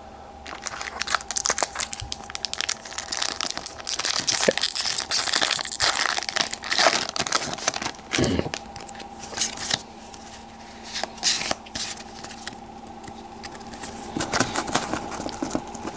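Foil wrapper of a Pokémon XY booster pack crinkling and being torn open, then the trading cards handled and slid against each other.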